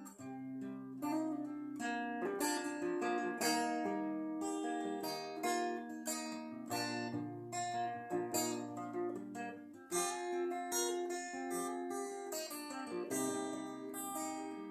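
Acoustic guitar played solo, a steady run of plucked notes and strummed chords over ringing bass notes, with a brief break about ten seconds in before a strong chord.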